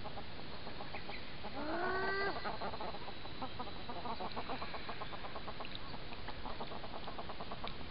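Animal calls: one drawn-out pitched call about two seconds in, then a long run of quick repeated short notes.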